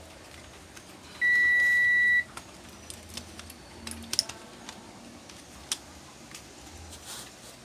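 A single steady, high electronic beep lasting about a second, starting a little over a second in. Light clicks and taps of laptop parts being handled follow.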